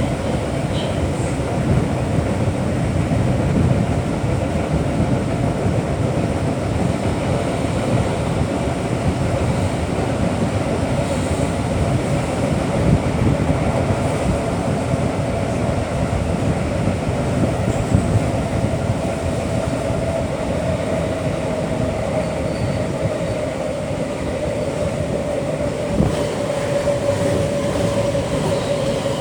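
Inside a DB class 472 S-Bahn electric multiple unit under way: the steady rumble of wheels on rail, with a held whining tone that grows stronger in the second half and drops slightly in pitch near the end.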